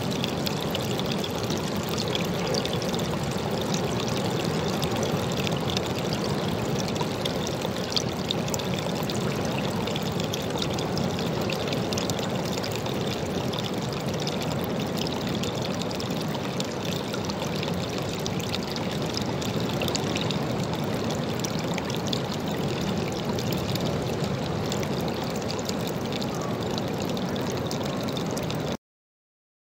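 Water pouring steadily over a rock ledge into a pool below, a continuous splashing trickle that cuts off suddenly near the end.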